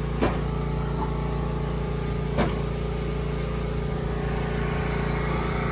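Small engine running steadily at an even speed, with two short knocks about two seconds apart.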